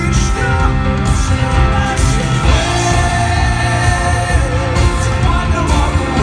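Live rock band playing electric guitars, bass and drums, with cymbal strokes about once a second and a long held note in the middle. Heard loud from within the audience.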